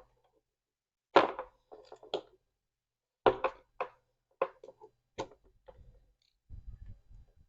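A series of sharp clicks and knocks, about seven or eight, as a refrigerator's fan is worked loose and pulled out of its mounting, with a low rumbling scrape near the end.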